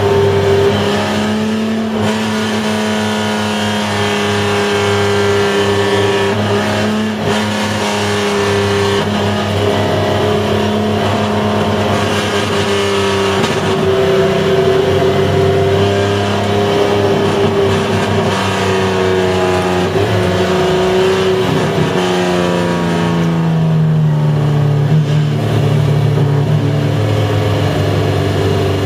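Race car engine heard from inside the cabin, running steadily under load at a slowly wandering pitch, which drops about three quarters of the way through and then holds lower.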